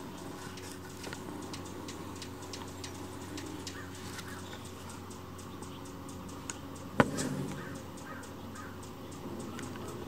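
Hummingbirds around a feeder: a scatter of short, dry ticking chip notes and some raspy calls over a low steady hum, with one sharp, loud click about seven seconds in.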